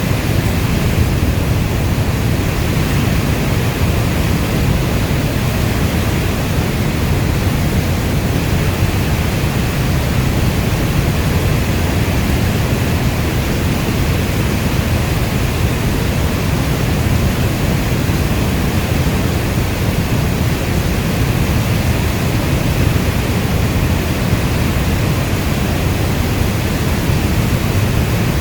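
Steady rainstorm: an even wash of rain with a strong low rumble, unchanging throughout.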